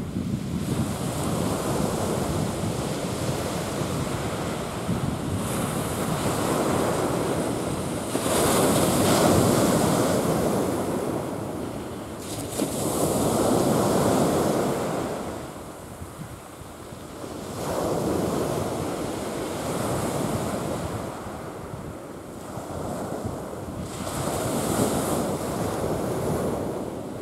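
Sea waves breaking and washing up on a rocky and pebbly shore, the surf swelling and fading in slow surges every five seconds or so. Wind buffets the microphone.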